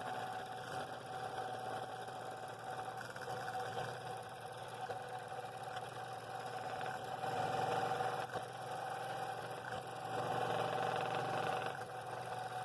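Scroll saw running with a No. 7 blade and cutting a wooden bowl ring. A steady machine hum with a held tone, and the cutting noise swells and eases as the blank is fed into the blade.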